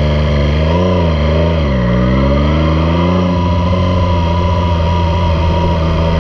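Triumph Street Triple 765 RS's three-cylinder engine through a Yoshimura Alpha T exhaust, pulling away from a stop. The revs climb and fall back twice as it shifts up, rise again, then hold steady at a cruise.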